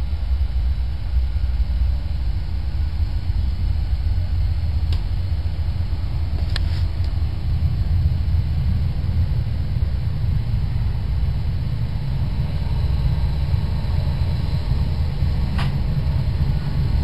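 Steady low rumble of a British Rail Mk1 coach running along the track, heard inside the carriage, with a few sharp clicks.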